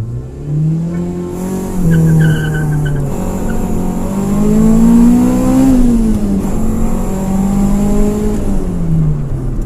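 Mitsubishi Lancer's engine pulling and easing off on a test drive: the pitch rises over the first few seconds, peaks about halfway, falls, holds steady, then drops near the end. A short high-pitched squeal sounds about two seconds in.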